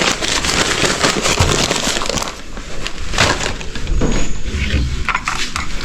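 Dense crinkling, rustling and clattering as used cups and soda bottles are handled and gathered up, with many sharp little knocks throughout.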